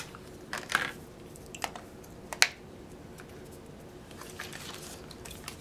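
A handful of light plastic clicks and taps as a battery is fitted into a Samsung Galaxy S4 smartphone, the sharpest click about two and a half seconds in.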